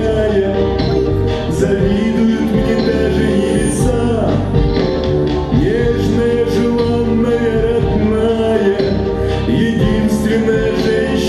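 A man singing a slow pop ballad into a microphone over amplified backing music with a steady beat.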